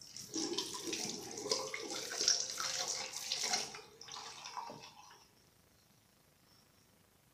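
Bathroom tap running into the sink while a toothbrush is wetted under it, shut off about four seconds in.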